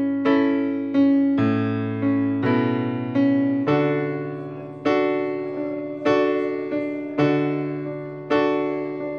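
Keyboard playing slow, sustained chords, a new chord struck about once a second and left to ring and fade.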